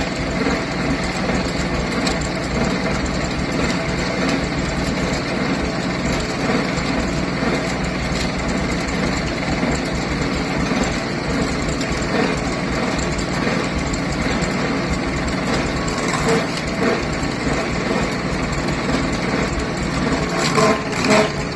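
Branson compact tractor's diesel engine running steadily at working speed, driving a PTO stump grinder.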